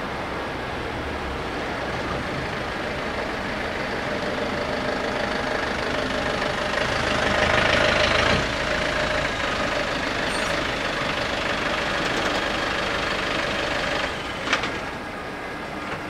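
Idling car engine with road-traffic noise that swells to a peak about eight seconds in, then drops off sharply, and a short sharp click near the end.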